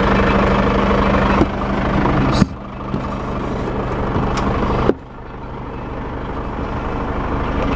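Nissan Diesel CK482 truck's diesel engine idling steadily, with three sharp knocks as a person climbs the metal steps into the cab; the engine sounds quieter after the later knocks.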